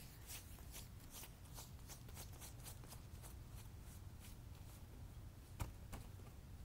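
Faint footsteps crunching in snow, a quick, even run of crunches, with one sharper click about five and a half seconds in.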